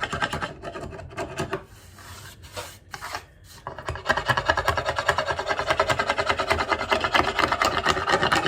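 Hand scraper rasping dried glue squeeze-out off the glued-up wooden board in quick repeated strokes. It scrapes briefly, eases off for about two seconds, then resumes louder and steadier.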